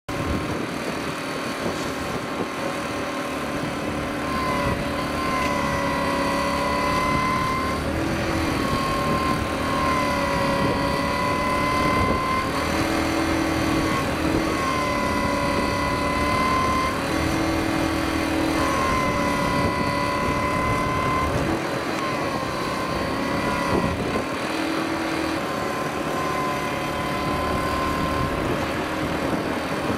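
An engine running steadily, with a whining tone that comes in and drops out every few seconds, bending slightly in pitch each time.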